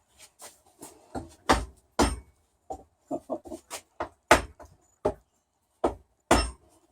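Irregular sharp knocks and taps on wood, about a dozen in a few seconds, some much louder than others: a tool being worked against the wooden tiller to get out a dowel stub that broke off in its hole.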